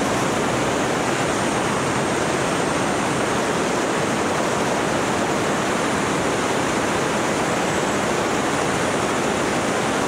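Steady rush of airflow noise from a microlight in flight: an even hiss with no clear engine note or change.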